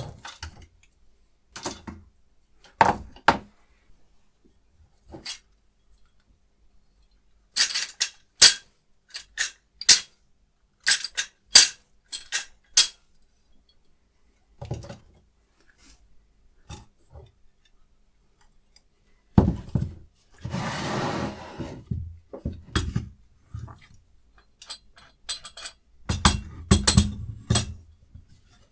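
Small metal parts being handled and set down: a run of sharp, bright clinks and clicks, a short scraping noise about two-thirds of the way in, and a few dull knocks near the end.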